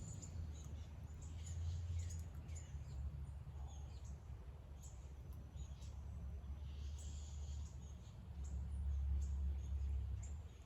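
Low, uneven rumble of wind buffeting the microphone, swelling twice. Faint high bird chirps and small ticks come through over it.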